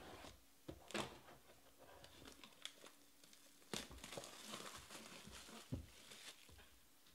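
Plastic shrink wrap being slit and peeled off a cardboard trading-card box: sharp crinkles and crackles with a few light knocks against the box. The crinkling is busiest in the second half as the wrap is pulled away and crumpled in the hand.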